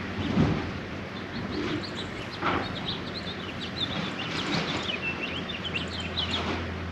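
Small birds chirping in quick, high, twittering runs, thickest in the second half, over steady outdoor background noise. A louder low thump comes about half a second in.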